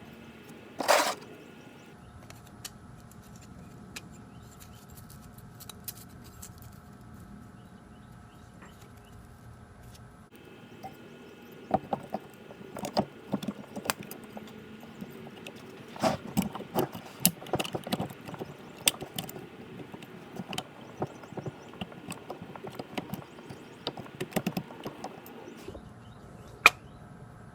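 Metal brake caliper parts (pads, anti-rattle clips, pins) being handled and fitted: scattered small clicks, clinks and knocks, busiest in the second half. A brief loud burst of noise about a second in.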